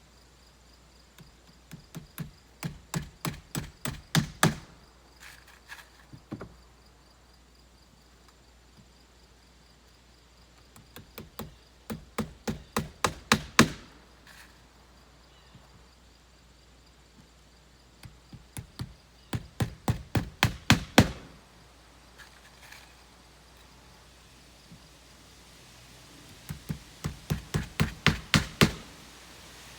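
Hand hammer driving roofing nails through shingles: four runs of quick blows, each run growing louder as the nail goes home.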